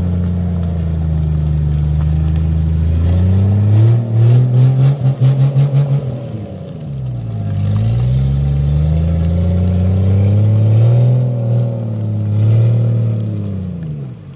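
Jeep Cherokee XJ's engine revving hard as it drives through deep mud ruts, the revs rising and falling several times. For a couple of seconds about four seconds in, the sound pulses rapidly, about four times a second.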